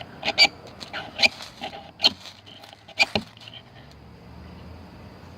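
Leatherman Style CS multitool being scraped in quick, sharp strokes, about six of them in uneven rhythm within the first three and a half seconds, as it is worked for fire-lighting.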